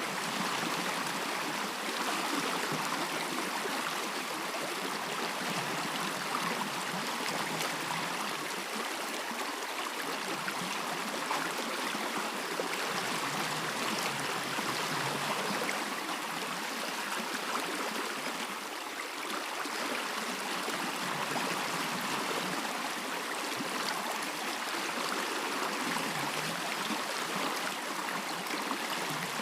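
A stream flowing steadily, a continuous rush of running water.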